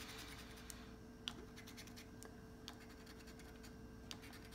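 A coin scratching the scratch-off coating on a 200X lottery scratch ticket. It is a faint, uneven run of small scrapes and ticks.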